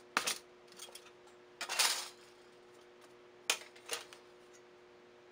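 Hard metal-on-metal clicks and clinks as a pancake die, its plates and a freshly cut brass piece are handled and set down on a steel plate: a click, a longer scraping rattle about two seconds in, then two sharp clinks. A faint steady hum runs underneath.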